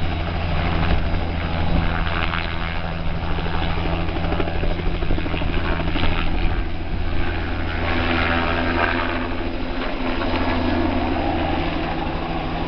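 Light helicopter lifting off a pad and flying away: a steady, loud rotor and engine sound with a low hum. The blade noise grows brighter about six seconds in as it climbs and turns away.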